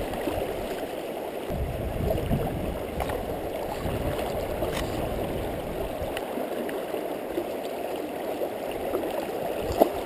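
Fast river current rushing and gurgling steadily, with a few light clicks.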